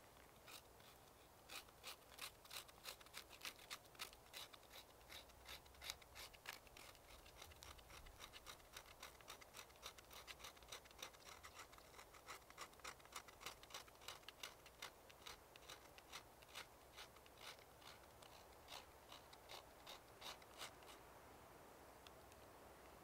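Faint scraping of a knife blade across birch bark, shaving it into fine tinder for a fire: quick, crisp strokes at about three a second that stop near the end.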